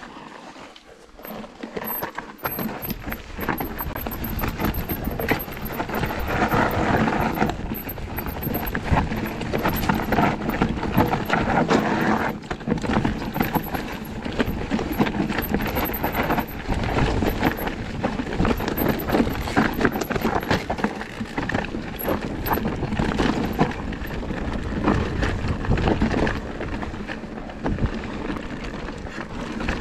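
Electric enduro mountain bike (Lapierre GLP2) riding down a rocky singletrack: continuous crunching of tyres over stones and clattering of the bike's parts, thick with irregular knocks, starting about two seconds in.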